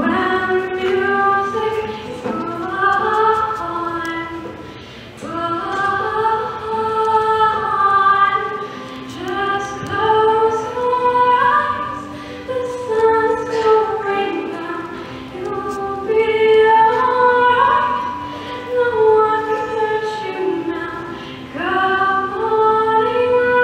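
A woman singing a slow song with long held notes, accompanying herself on an acoustic guitar, heard through a camera's built-in microphone.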